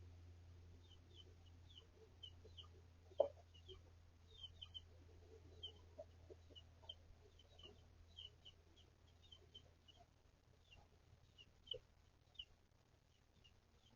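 Faint chicken sounds: young chicks peeping in short high chirps, several a second, with a few brief low clucks, the loudest about three seconds in, over a steady low hum.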